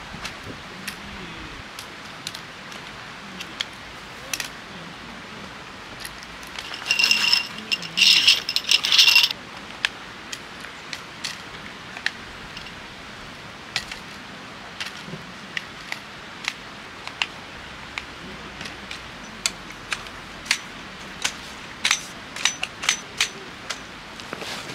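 Metal parts of a folding camp chair's leg frame clicking and clinking as they are fitted together, with scattered sharp knocks. About seven seconds in, a couple of seconds of louder metallic scraping and ringing, and a quick run of clinks near the end.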